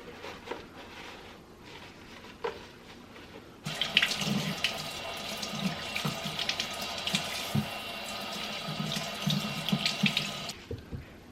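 Kitchen tap running into a sink, turned on about a third of the way in and shut off near the end, with small knocks and clatter under the stream. Faint small knocks before the water starts.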